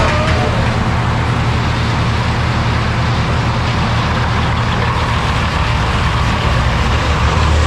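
A large engine running steadily with a deep, even drone, typical of heavy equipment on a tree-removal job.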